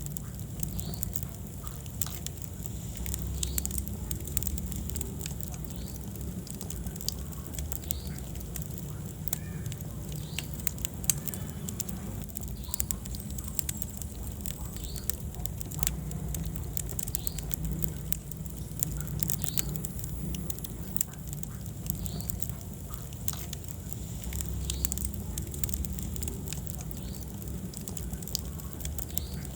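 Wood fire burning in a fireplace: frequent irregular sharp crackles and pops over a steady low rumble.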